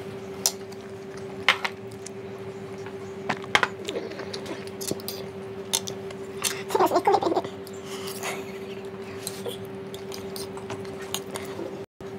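Metal fork clinking and scraping against a plate while noodles are twirled and eaten, picked up close by a lapel microphone, with sharp irregular clicks. A steady low hum runs underneath, and the sound drops out briefly near the end.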